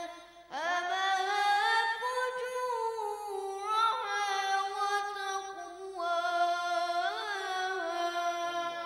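A boy's unaccompanied voice chanting Quran recitation in long, ornamented held notes, with short breaths between phrases; the last phrase fades out near the end.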